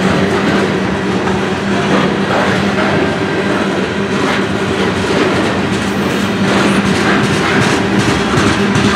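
Grain train covered hopper cars rolling past on steel rails: a steady rumble with a constant low hum and wheels clacking over rail joints every second or so.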